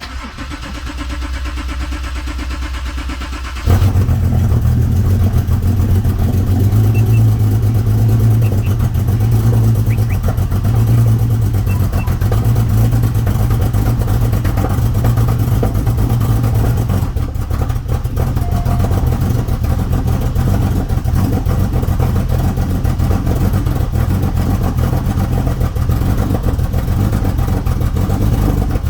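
Porsche 911 (991.1) flat-six engine cold-starting: it catches about four seconds in and then runs a rough, uneven idle. It is misfiring, with the check-engine light on, which the owner blames on a tank of fuel just filled up.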